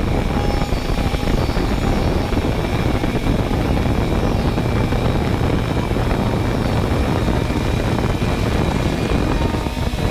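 Multirotor drone's motors and propellers whirring steadily, heard through the camera on board: a dense rushing noise with a few thin, steady high-pitched whines above it.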